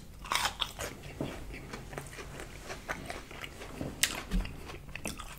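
Close-up chewing of a bite of battered fried zucchini: irregular small crunches and wet mouth clicks, with one sharper click about four seconds in.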